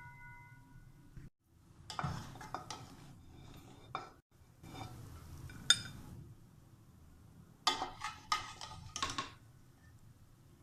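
A serving spoon scraping and clinking against a kadhai and serving dish as cooked biryani rice is dished out, in a few scattered groups of clinks, with one sharp clink near the middle.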